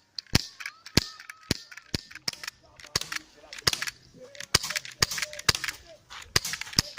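Airsoft guns firing in quick succession: a string of sharp cracks at irregular spacing, a few a second.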